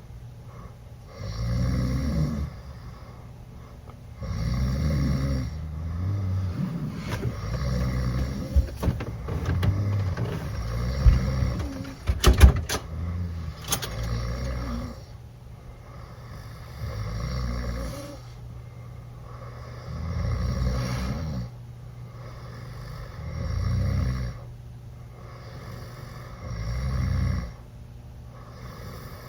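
Teenage boys snoring loudly through open mouths after drinking, a deep snore about every three seconds. Around the middle the snores run together, with a few sharp clicks that are the loudest moments.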